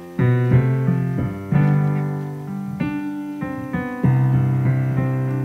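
Background music on a piano or keyboard, playing slow chords. A new chord is struck about every second and a quarter, and each one rings and fades.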